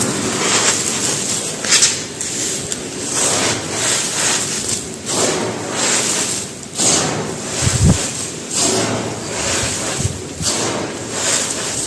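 Dry mud brick being crumbled: a gritty, dusty crunching that comes in repeated waves every second or so, with a dull thump about two-thirds of the way through.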